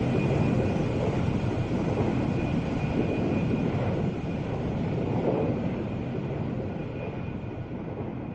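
Airplane flying past and moving away, a steady rumbling drone with a faint thin whistle, slowly fading and growing duller as it recedes.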